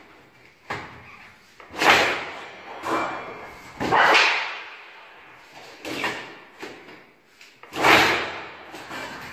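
Manual lever-arm blade shear (pala makas) cutting sheet metal: a series of sharp shearing strokes, each a sudden rasping snap that dies away, about every one to two seconds, the loudest about two seconds in and near the end.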